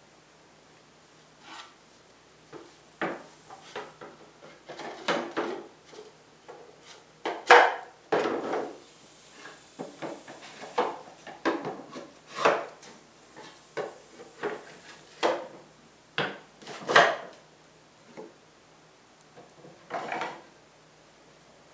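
Stained 3/4-inch plywood panels knocking and sliding against each other and the wooden workbench as they are fitted together by their interlocking slots. Irregular wooden clacks and short scrapes, the loudest about a third of the way in and again late.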